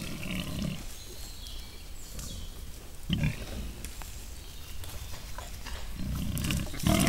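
Wild boars grunting: a short low grunt just after the start, another about three seconds in, and more frequent grunting building toward the end.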